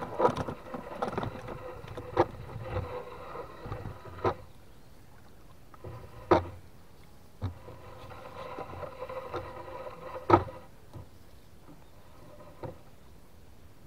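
A wet nylon gill net being hauled by hand into a small wooden boat, the net rustling as it comes over the side. About six sharp knocks against the wooden hull are spread through, the loudest about 6 and 10 seconds in.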